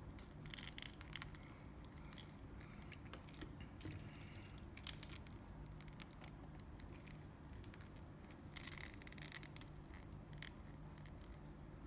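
Faint scraping, rubbing and light clicks of plastic figure parts being handled and fitted together by fingers, coming in scattered short bursts over a faint low hum.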